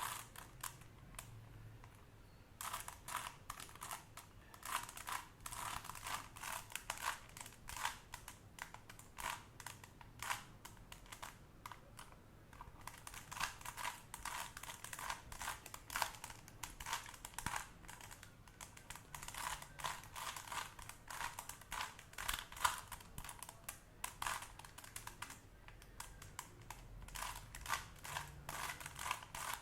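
Plastic Rubik's Cube being turned by hand, its layers clicking and clacking in rapid, irregular flurries with brief pauses while the second layer is solved. The clicking picks up about two and a half seconds in.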